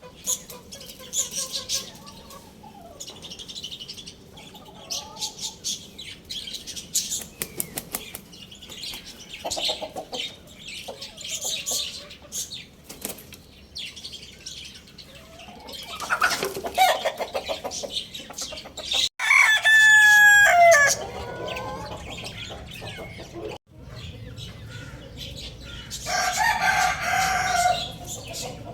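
Chickens clucking and fussing with wings flapping, under a busy chatter of smaller birds chirping. A rooster crows loudly about 19 seconds in, and another crow follows near the end.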